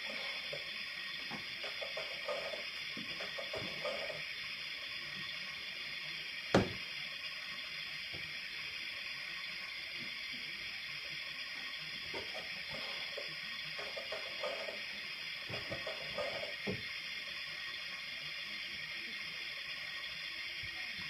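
Plastic toy-kitchen faucet handle being turned back and forth, giving small runs of light clicks and taps, with one sharp knock about six and a half seconds in, over a steady background hiss.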